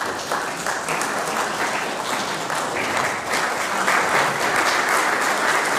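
Audience applauding: a dense round of clapping from many hands, swelling slightly about halfway through.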